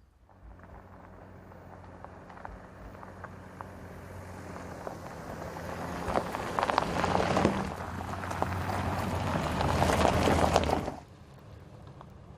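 Audi SQ5 driving off-road, its engine running under load while the tyres crunch over loose ground with scattered clicks of stones. It grows steadily louder as it comes closer, then stops abruptly about eleven seconds in.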